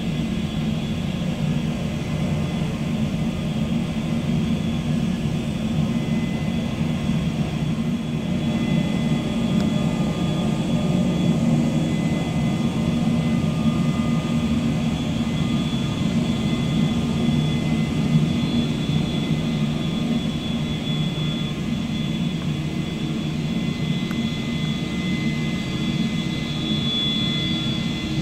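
Boeing 727-200's three Pratt & Whitney JT8D turbofan engines running at taxi power: a steady jet rumble with a high whine.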